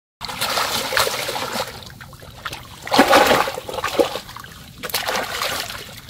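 Water splashing in irregular bursts, the loudest about three seconds in.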